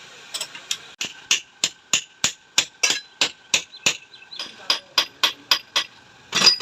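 Hammer and punch striking the steel body of a motorcycle mono-shock absorber in quick even blows, about three a second, with a faint metallic ring between them. The body is being punched so that it holds together. There is a short lull in the middle and one loud blow near the end.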